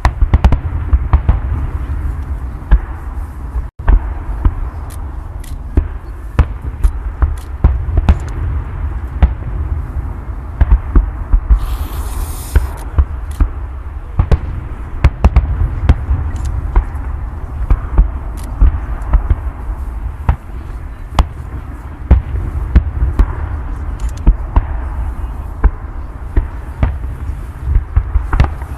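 Fireworks display: a dense, continuous barrage of bangs and booms over a heavy low rumble, with a short hissing burst about twelve seconds in.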